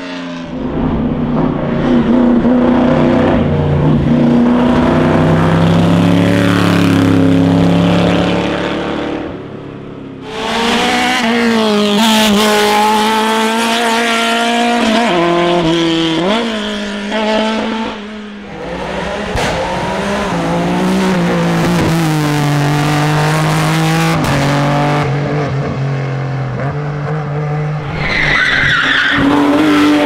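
Classic racing car engines at full throttle, one car after another. The pitch climbs through each gear and drops back at every shift, with brief lulls about ten and eighteen seconds in.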